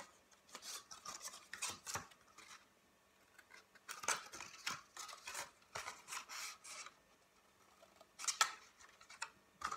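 Scissors snipping small slits into a rolled tube of cardstock: a series of short, crisp cuts in three runs with pauses between.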